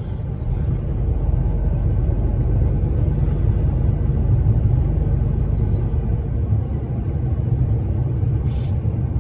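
Car-transporter truck's engine and road rumble heard from inside the cab while driving, a steady low drone. A brief hiss comes near the end.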